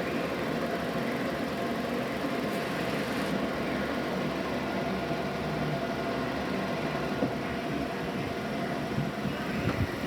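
DeVlieg mill running steadily while machining a cast-iron exhaust manifold: an even machine sound with several held tones over a noisy background.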